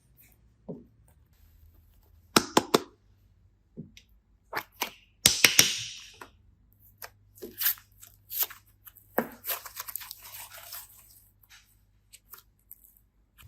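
Handling noises from hands working with craft materials: scattered sharp clicks and crackles, with a dense crackling, tearing burst about five seconds in and a softer crackly stretch near the end.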